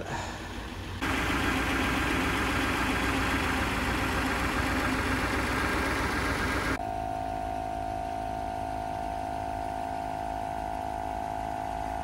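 Mercedes 420SEL's 4.2-litre V8 idling with one cylinder not firing, a misfire that shakes the engine. The sound steps louder about a second in and turns to a steadier hum about seven seconds in.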